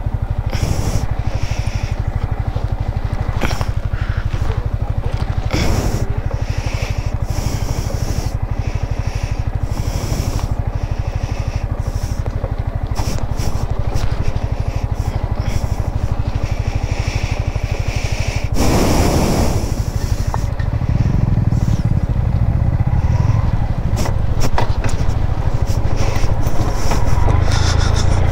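Yamaha MT-15's single-cylinder engine running at low revs as the motorcycle rolls slowly down a rough cobbled stone track, with scattered knocks and rattles from the bike jolting over the stones. About two-thirds of the way through there is a brief rush of noise, and after it the engine sounds louder.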